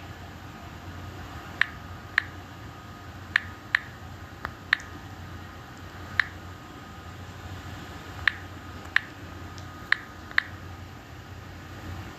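About ten light, sharp clicks at uneven intervals, taps on a phone touchscreen while a word is typed and searched, over a steady low hum.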